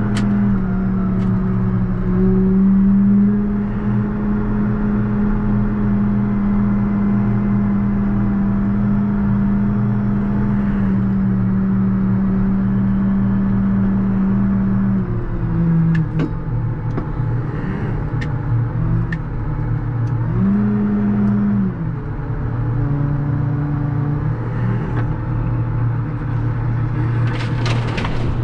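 JCB Fastrac 4220 tractor's six-cylinder diesel engine running steadily under load as it pushes a front snow plow. Its pitch drops about halfway through, rises briefly a few seconds later, then settles lower as engine speed changes. A few sharp knocks and a short scraping burst come near the end.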